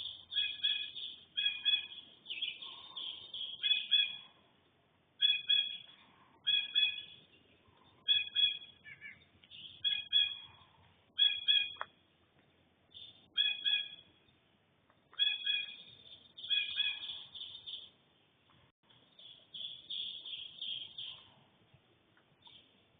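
Bobcat calling: short, high-pitched, meow-like cries repeated every second or two, with a brief lull about two-thirds of the way through.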